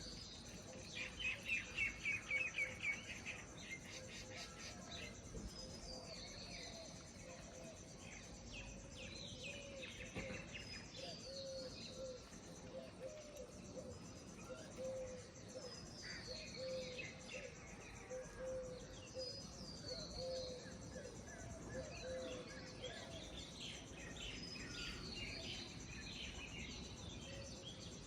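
Several small birds chirping and calling, with a fast run of chirps about a second in and short rising and falling calls after it. A lower note repeats steadily underneath, over steady outdoor background noise.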